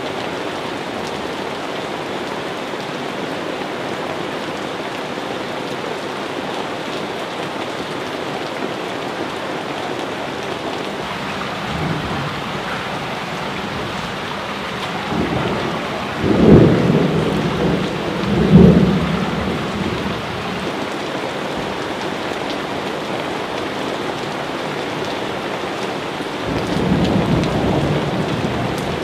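Steady rain falling, with thunder rumbling through it: two loud peals a couple of seconds apart about midway, and another lower rumble near the end.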